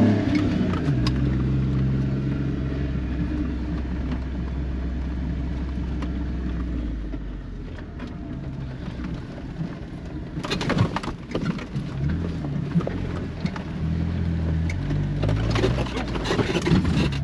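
A Jeep's engine running at low speed, heard from inside the cabin, while it drives a flooded, muddy dirt track. There are bursts of splashing and crackling from the tyres about ten seconds in and again near the end.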